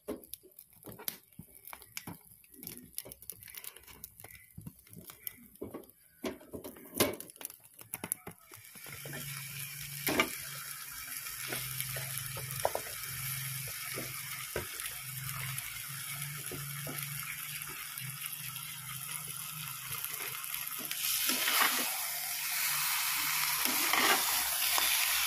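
Scattered faint clicks and knocks, then from about nine seconds a steady sizzling hiss of rooster pieces cooking in a pan, swelling louder twice near the end.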